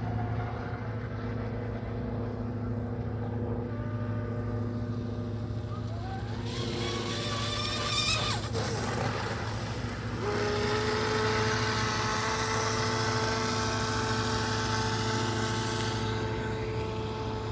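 Radio-controlled boat running on the water, its motor whining. The pitch climbs from about six seconds in, and a steadier, louder whine with a hiss of spray holds from about ten seconds in.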